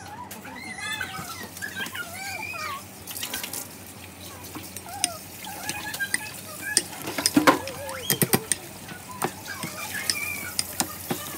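Ripe avocado being squished and mashed in a ceramic bowl by hand and with a spoon, with several sharp clicks of the spoon and fingers against the bowl, the loudest about seven to eight seconds in.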